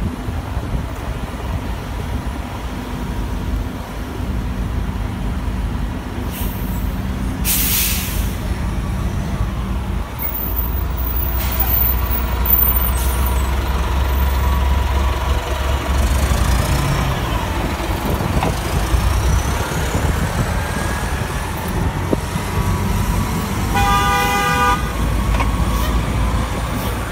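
1999 NovaBus RTS transit bus's diesel engine running as it pulls away and drives past, its rumble growing heavier about ten seconds in. A short burst of air hiss comes about eight seconds in, and a vehicle horn toots in short bursts near the end.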